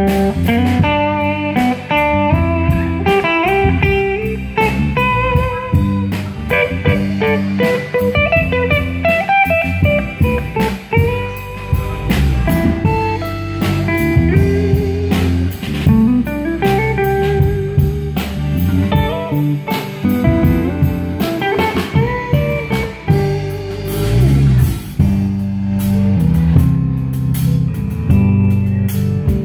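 Live band playing an instrumental break: an electric guitar solo of single-note lines over bass and drums.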